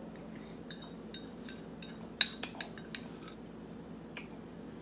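Fork clinking and scraping against a ceramic bowl while scooping out soft carrots: about a dozen irregular clinks, several with a brief bright ring, the loudest a little over two seconds in.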